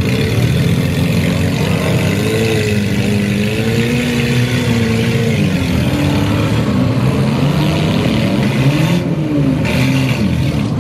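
Several compact demolition derby cars' engines revving, their pitch rising and falling over and over, over a dense steady din of running engines.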